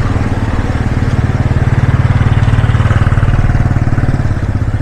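Small motorcycle engine running at low revs close by, a rapid even putter that swells a little in the middle.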